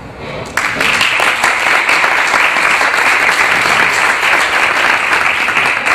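Audience applauding: the clapping breaks out suddenly about half a second in and keeps going.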